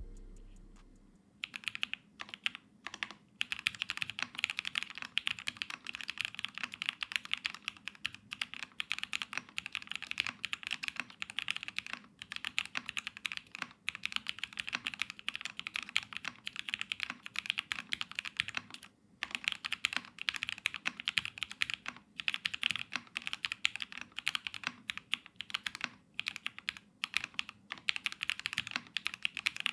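Fast, continuous typing on an Ayleen TKL mechanical keyboard with an aluminium plate, Everglide Aqua King linear switches and GMK keycaps: a dense run of keystroke clacks with a few short pauses, starting about a second in.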